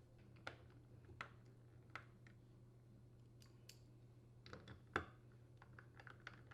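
Faint, scattered clicks of a hand tool and metal screws as the mounting screws are threaded and tightened into a dishwasher door hinge, over a low steady hum. There are a few single clicks in the first two seconds and a small cluster of them near five seconds.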